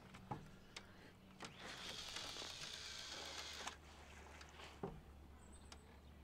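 Casting reel's spool spinning as line pays out on a cast: a soft steady hiss lasting about two seconds that cuts off sharply. A few faint clicks of rod and reel handling come before and after it.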